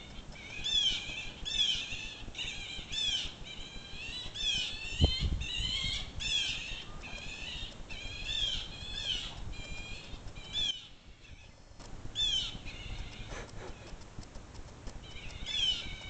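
Blue jays calling over and over, harsh downward-sliding calls about one a second, as they mob the dog and cat; the calls pause for a moment about eleven seconds in. A single low thump about five seconds in.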